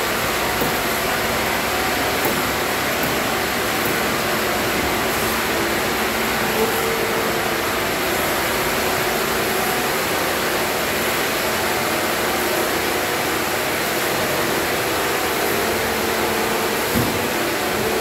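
Steady drone of a sawmill's breakdown saw line and log-handling machinery running, with a few light knocks.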